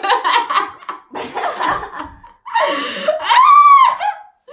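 Young women laughing in several loud bursts, the last a long high-pitched squeal of laughter that rises and falls.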